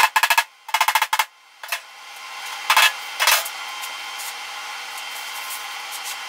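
MIG welder laying short stitch tacks on sheet-metal body panel: about five brief crackling bursts in the first three and a half seconds, then only a steady background hiss.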